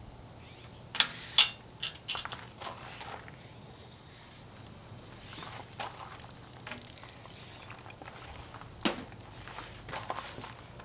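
A brief hiss of air as a tire pressure gauge is pressed onto the valve of a pressurized rooftop solar shower tank, followed by clicks and rustling of a garden hose and its brass fitting being handled, with a sharp click near the end.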